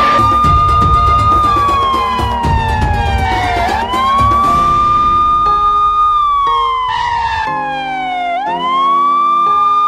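Police-style siren wail: a tone that sweeps up quickly, holds, then slides slowly down, repeating about every four to five seconds. Light background music runs underneath.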